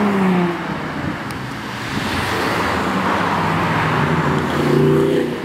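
Cars driving slowly past in a line: engine hum and tyre noise, with a passing engine's note falling in pitch at the start and another engine note coming up near the end.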